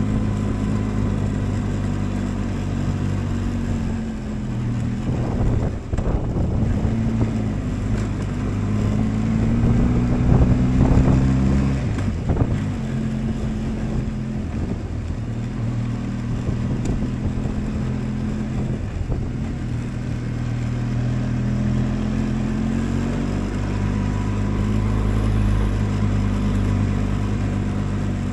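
Motorcycle engine running steadily while being ridden, its pitch rising and falling a few times through the middle stretch as the throttle changes. A few brief knocks come near the middle.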